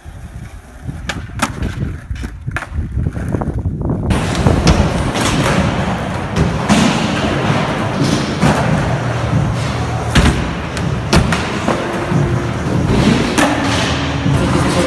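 Skateboard wheels rolling on hard ground, with several sharp clacks of the board being popped and landing.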